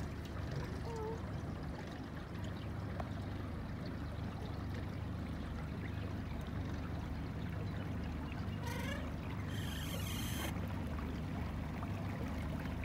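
Water trickling and lapping against a small boat's hull as it moves across calm water, over a steady low hum.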